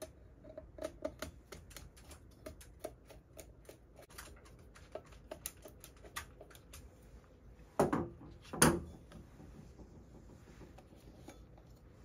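Hand screwdriver driving small screws to fasten a steel bracket onto a Hyosung 8000R ATM keypad, a quick run of small clicks and ticks. About eight seconds in come two loud knocks close together, then quiet handling.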